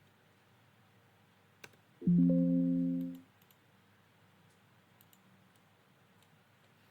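A short electronic alert chime from the computer: a chord of several steady tones that starts suddenly about two seconds in and fades out after about a second. Faint computer mouse clicks come before and after it.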